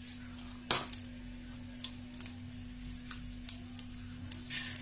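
Mustard and cumin seeds in hot ghee crackling with scattered pops in a nonstick kadai, then near the end a short sizzling hiss as urad dal is tipped into the hot ghee. A steady low hum runs underneath.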